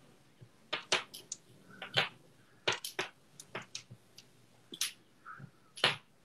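A string of about fifteen short, sharp clicks and taps at an irregular pace, some in quick pairs.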